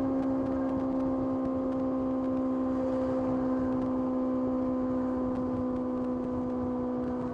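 Kawasaki ZX-6R's inline-four engine running at a steady, high-pitched note under constant throttle while riding, over a rush of wind noise.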